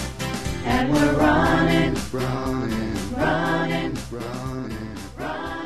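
The closing bars of a sung song parody: a group of voices holds long sung notes over steady drum beats, and the music fades out toward the end.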